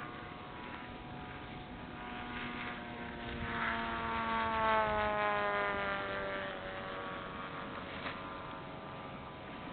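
Engine of a model airplane flying over the field, a steady buzzing drone that swells about four to five seconds in and then fades, its pitch sliding slightly lower as it goes.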